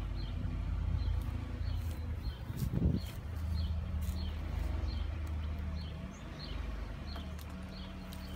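Ram ProMaster van's engine running low and steady as the van creeps forward into a carport, with a brief swell about three seconds in. A bird chirps over it about twice a second.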